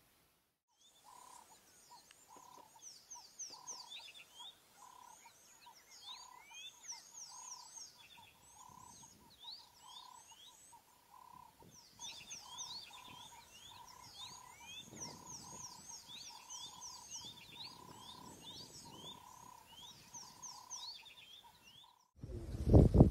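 Frogs calling: a short note at one pitch repeated about twice a second, with quick runs of high falling chirps above it. Near the end a loud rushing rumble cuts in.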